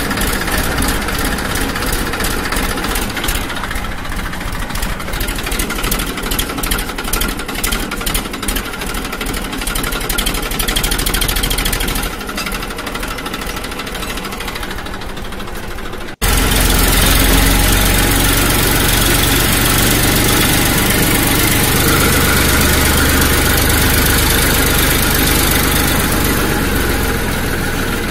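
A motor running with a fast pulsing. About 16 seconds in it cuts abruptly to a louder, steadier running sound.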